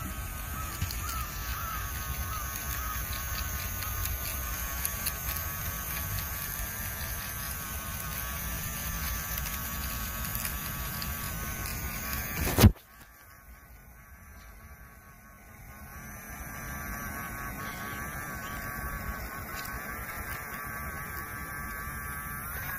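Small DC electric motor of a homemade toy tractor whining steadily. A single sharp click comes a little past halfway, after which the whine is quieter for a few seconds before it builds back up.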